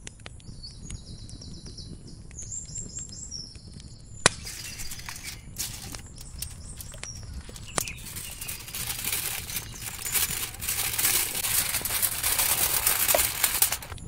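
A bird sings a short run of high chirps in the first few seconds. After a sharp click about four seconds in, aluminium foil crinkles and crackles as it is handled and folded around a fish, louder in the last few seconds.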